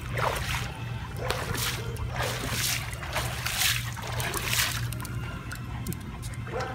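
Pool water splashing and trickling in short hazy bursts about once a second as a wet miniature schnauzer runs around the pool, over a steady low hum.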